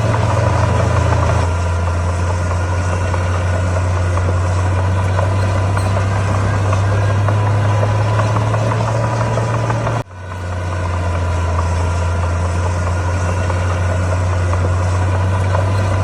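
Komatsu D41P bulldozer's diesel engine running steadily with a deep, even hum. The sound cuts out abruptly about ten seconds in and swells back within a second.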